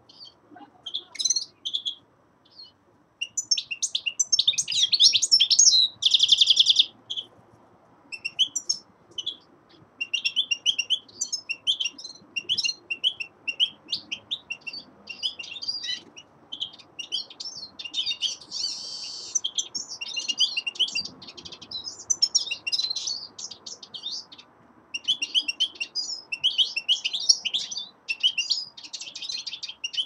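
European goldfinch of the black-headed form singing in a cage: long runs of rapid, high twittering notes broken by short pauses, with a brief buzzy trill about six seconds in and another near nineteen seconds.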